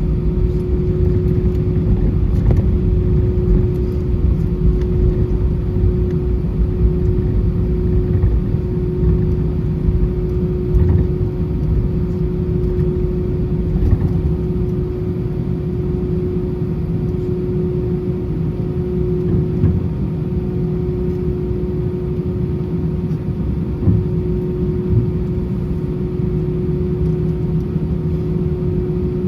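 Airbus A320 jet engines running steadily, a constant low rumble with a steady mid-pitched hum, without the rise of a takeoff run.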